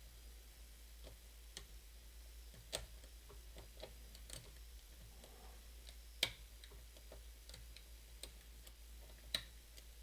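Faint, scattered ticks and clicks of a lock pick working the pin stack of a challenge lock. Three sharper clicks come about three seconds apart, over a steady low hum.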